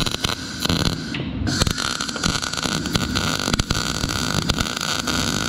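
CO2-shielded MIG welding arc crackling steadily as steel wire feeds into a joint, with amperage and wire speed set to match each other. The arc stops briefly about a second in, then restarts.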